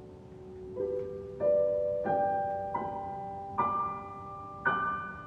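Solo piano playing a slow line of single struck notes, about six of them, stepping upward in pitch, each left to ring out.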